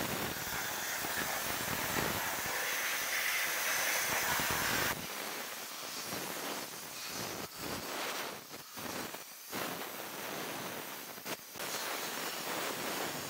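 Cleaning an engine's crankshaft seal area with gasoline: a steady spraying hiss, then about five seconds in an abrupt change to uneven scrubbing and rustling noise.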